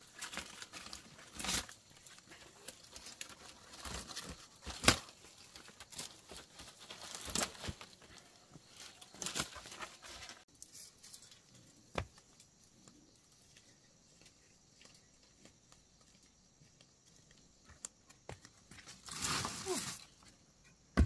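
Irregular short bursts of rustling and scraping noise, as of debris or material being handled, for about ten seconds, then quieter with one sharp knock, and another burst near the end.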